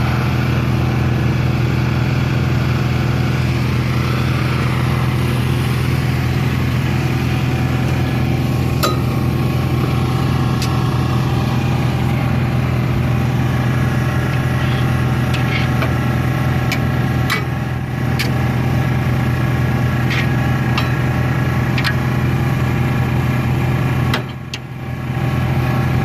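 Pressure washer's gasoline engine running steadily at a constant speed. There are scattered sharp ticks in the second half and a brief dip in level about 24 seconds in.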